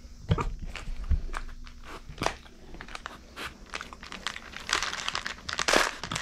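Micro pig rooting with its snout through a basket of small white pebbles: the stones click and shift in a run of short crunches, thickest about five seconds in.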